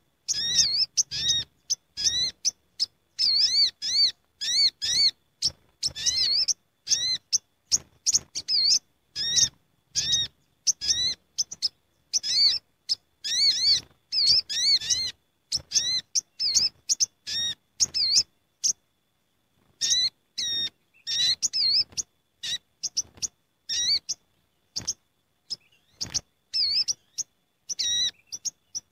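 A flock of olive-backed sunbirds (sogok ontong) calling together in a busy run of short, high, sharp chirps, one after another with little break. The calls stop for about a second around two-thirds of the way through. It is a lure call used to draw in the same species.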